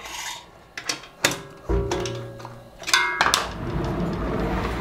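A few light clicks of a hand screwdriver, then the aluminium-extrusion 3D printer frame turned and slid across a wooden tabletop: a low rumble and scraping, with a brief knock near the middle. Background music runs underneath.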